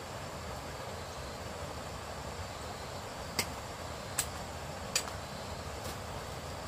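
Machete chopping at a thin woody stalk: three sharp strikes about a second apart around the middle, with a fainter fourth after them, over a steady background hiss.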